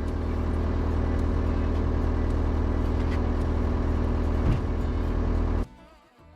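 Skid steer engine running steadily, with a couple of light knocks, until it cuts off suddenly near the end.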